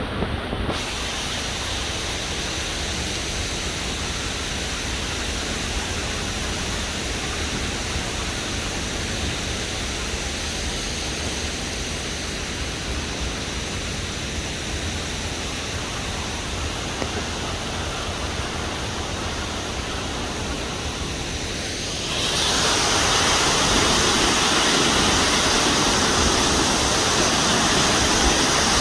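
Fukuroda Falls' water falling, a steady rushing noise that grows suddenly louder and brighter about 22 seconds in.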